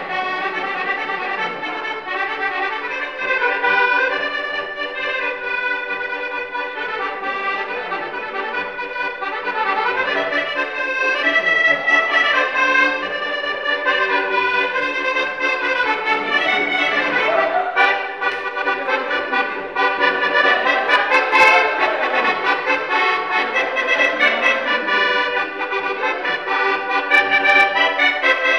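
Two diatonic button accordions (organetti) playing a polka together.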